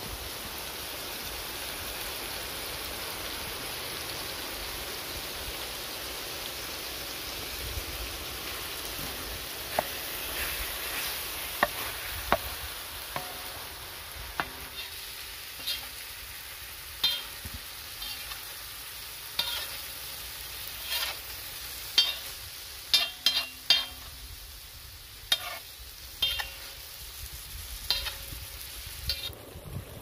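Marinated chicken pieces and onion sizzling in oil on a large tawa griddle while a spatula stirs them. From about ten seconds in, the sizzle is quieter and sharp taps and scrapes of the spatula on the griddle come every second or two.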